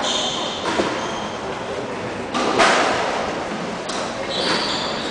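A squash ball being hit with a racket and striking the court walls, each hit sharp and echoing around the court; the loudest comes about two and a half seconds in. Brief high squeaks, typical of court shoes on the wooden floor, come near the start and again near the end.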